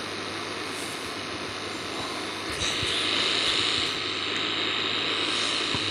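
Air conditioner running: a steady rush of air over a low hum, turning louder and hissier about two and a half seconds in.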